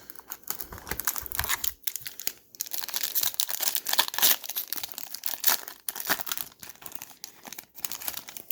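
Trading-card pack wrapper being torn open and crinkled by hand, an irregular run of crackles that is busiest in the middle and stops near the end.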